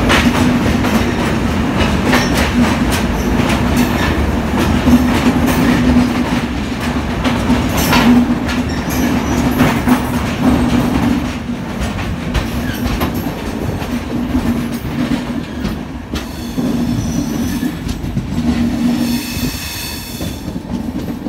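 Train running on rails, heard from aboard: a steady rumble with the clickety-clack of wheels over rail joints. It is louder while passing through a rock-walled tunnel and quieter from about eleven seconds in, once out in the open. A high wheel squeal sets in near the end.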